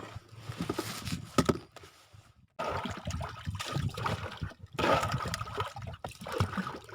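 Water splashing and trickling, uneven, with a brief drop-out about two and a half seconds in before it starts again abruptly.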